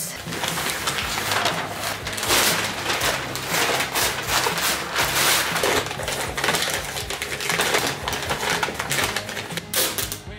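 Brown packing paper crinkling and rustling in short crackles as drinking glasses are wrapped in it, with background music underneath.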